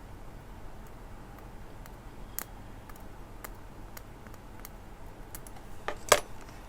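Scattered small clicks and light taps of a hand tool prying at the crimped metal pin of a breadboard jumper wire in its plastic housing, with a sharper double click near the end.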